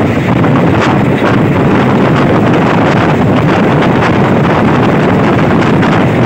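Wind buffeting the microphone at the open window of a moving passenger train, over the train's steady running noise on the track. The mix is loud and continuous, with faint irregular clicks.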